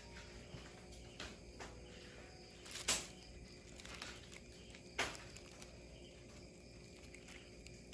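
Faint steady chirping of crickets, broken by two sharp knocks about three and five seconds in.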